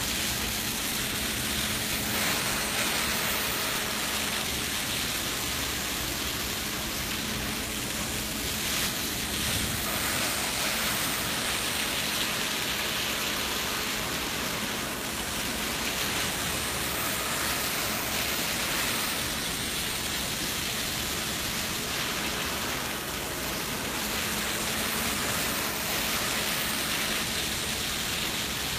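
Steady rushing hiss of a truck-mount carpet extractor's vacuum pulling air and water up through a Rotovac Bonzer cleaning tool as it works across the carpet, with a faint low hum underneath.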